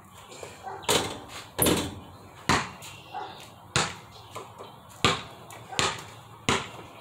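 A basketball bouncing hard, about seven loud smacks at uneven intervals of roughly a second, with a few fainter knocks between them.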